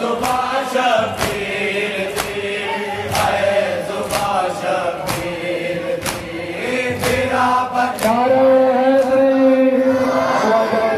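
Men chanting a noha, a Shia mourning lament, in unison, with long held notes. Sharp strikes land about once a second, keeping the beat, typical of matam (chest-beating) by the anjuman.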